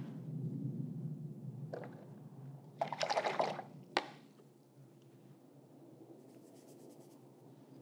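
Wet paper towel dabbed and rubbed against a painting's surface of joint compound and acrylic on heavy watercolour paper, blotting wet paint. There is a brief louder rustle about three seconds in and a sharp click about a second later, then only faint sound.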